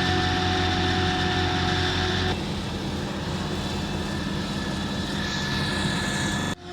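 Heavy farm machinery diesel engines running steadily under work. About two seconds in the sound switches abruptly to another steady engine sound, and a faint rising whine comes in near the end.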